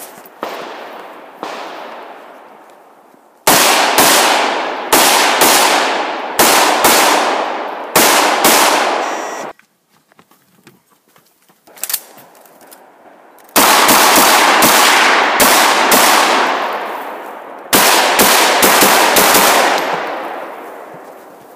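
Rifle gunfire: strings of shots, many in quick pairs, each followed by a long echo that fades over a second or so. The first few shots are fainter. After a brief near-silent gap partway through, the loudest and densest strings come.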